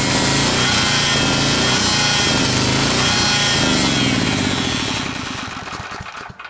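The 8 hp engine of a Coleman Maxa 4000 ER Plus generator running loud and steady, then shut off and winding down to a stop over the last couple of seconds.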